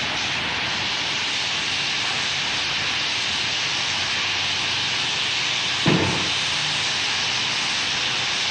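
A steady, even hiss throughout, with one dull thump about six seconds in.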